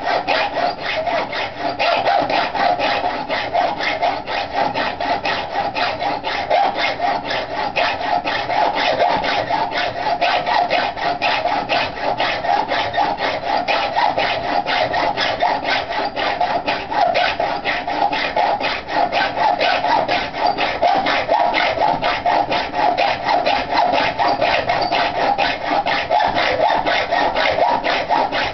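Hand hacksaw cutting through a flat bar of stainless steel: a steady, even run of back-and-forth saw strokes that keeps going without a pause.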